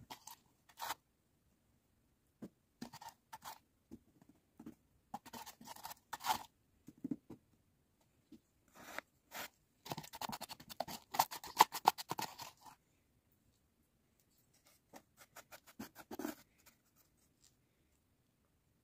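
Scattered scratches, scrapes and small taps of hand work, broken by silences, with a quick run of rapid clicking near the middle that is the loudest part.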